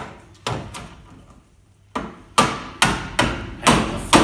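Hammer striking a chisel driven in at a nail fixing: a few blows in the first second, then a steady run of louder strikes about two a second from about two seconds in.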